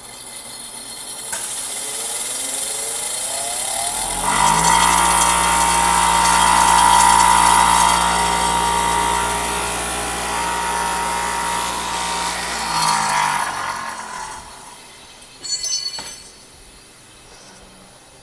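Power grinder spinning up, then grinding steadily on metal for about nine seconds and winding down, with one short burst about two seconds later; it is grinding down the raised part of a toolbox lock that blocks the key.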